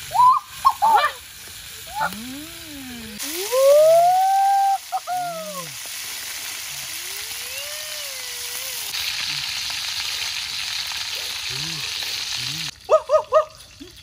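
Small wild birds frying in a wok over a wood fire: a steady sizzle that gets louder about nine seconds in and cuts off suddenly near the end. In the first few seconds a person's wordless calls rise and fall in pitch, one long call the loudest sound of all.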